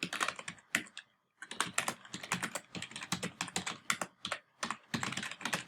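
Typing on a computer keyboard: fast runs of keystrokes, with a short pause about a second in and another shorter one near the end.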